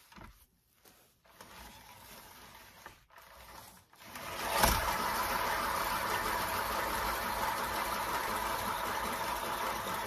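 A 12-inch round painted canvas spun hard by hand, running with a steady whirring rumble that starts about four seconds in with a knock as it is set going.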